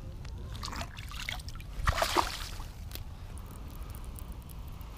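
Shallow water sloshing and trickling as a bass is held in the water at the bank and let go. One louder splash comes about two seconds in.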